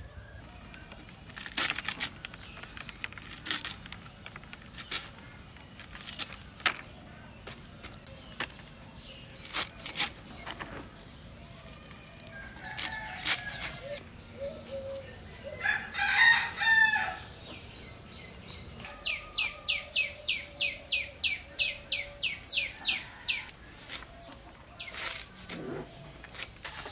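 A rooster crows once, about midway, a call lasting a second or so. Around it come scattered sharp clicks and, later, a fast, even run of about twenty ticks, some four to five a second.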